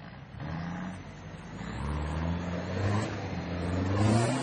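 Off-road 4x4 truck's engine revving hard under load on a steep dirt climb, its note rising and getting louder over the last few seconds. Near the end, at the loudest point, there is a rush of noise from the tyres spinning and throwing soil.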